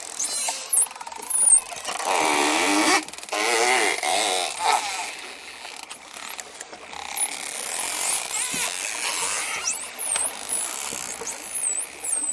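Dolphins calling: many high whistles gliding up and down, overlapping with buzzy, wavering squawks between about two and five seconds in, and scattered clicks.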